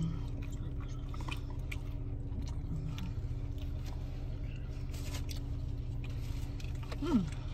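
A person chewing food, with small wet mouth noises and clicks, over a car's steady low hum. A brief hummed vocal sound comes near the end.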